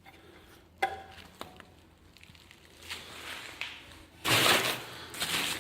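Handling noises: a sharp knock about a second in, faint ticks and rustling, then a louder rustle near the end as the metal model parts and their wrapping are moved about.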